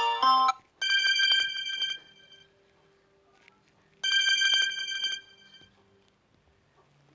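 Samsung Galaxy A20 ringtones playing: the last notes of one electronic melody end about half a second in. Then a single bright chime rings twice, about three seconds apart, each ring lasting a little over a second.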